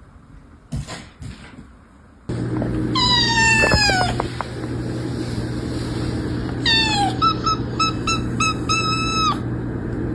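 Cat meowing over a steady hum: a long falling meow, a second shorter one, then a quick run of short repeated chirping calls ending in a longer one. Two brief knocks come just before the hum starts.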